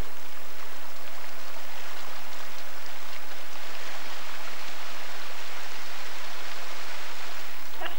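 A river rushing over rapids: a steady, even rush of churning whitewater.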